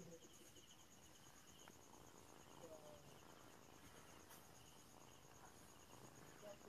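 Faint insect chirping: a high, even pulsing trill throughout, with a lower chirp repeated in short groups.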